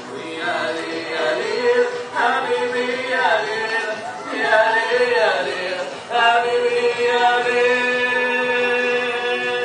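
Several voices singing a song with musical accompaniment; from about six seconds in the notes are held long and steady.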